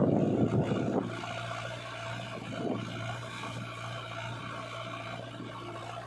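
Diesel engines of a backhoe loader and a tractor running steadily. There is a louder, rougher stretch in the first second, then an even hum.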